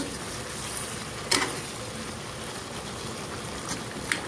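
Chicken curry bubbling and sizzling as it simmers in its sauce in a pan, a steady noise, with a few short sharp clicks along the way.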